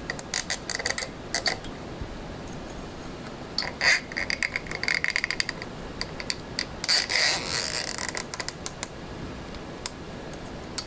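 Nylon zip tie being pulled tight through its ratchet head: three runs of rapid clicks.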